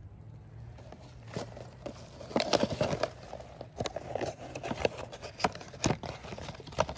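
Plastic clicks and knocks as a diesel fuel filter housing and its paper cartridge are handled and set down on grass, with rustling in between; the knocks come thickest about two and a half seconds in.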